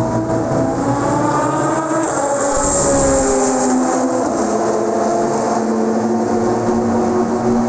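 Several racing-car engines running loud and steady together, their pitches gliding slowly up and down.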